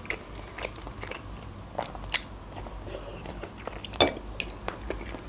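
A person chewing and biting food close to the microphone: soft wet mouth sounds with crunchy bites and a few sharp clicks, the loudest about two seconds in and about four seconds in.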